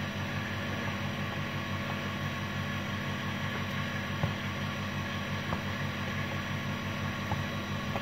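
A kitchen knife tapping down onto a cutting board a few times as it cuts through soft fresh rice noodle sheets, over a steady background hum.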